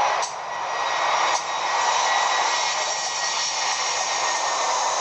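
Uchida Arctic 52-inch ceiling fan running, a steady rush of air with a faint thin high tone in it; the level dips briefly twice near the start.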